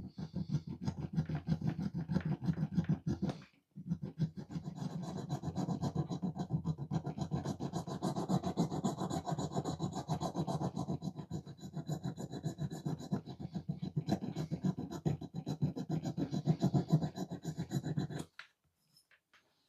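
Metal die-cast car body being filed or abraded by hand in rapid back-and-forth strokes, with a short break about three and a half seconds in, stopping near the end.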